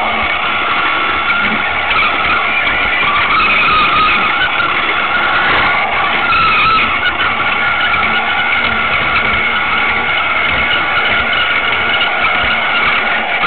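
Battery-powered Lego Duplo toy train running along plastic track, heard up close: its small electric motor and gears whine steadily, with a noisy rattle underneath.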